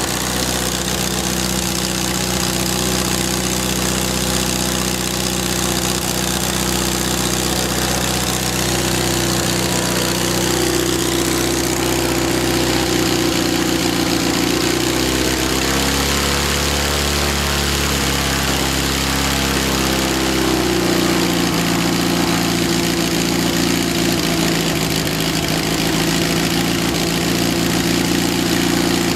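AeroVee 2180 air-cooled flat-four aircraft engine with Rotec throttle-body injection running on its first start, turning the propeller. It runs steadily, drops in speed about halfway through, then picks back up a few seconds later.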